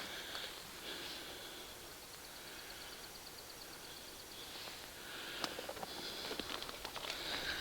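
Faint outdoor animal calls: a rapid high trill of evenly spaced ticks lasting about two seconds, over a soft background of distant calling. A few light clicks come near the end.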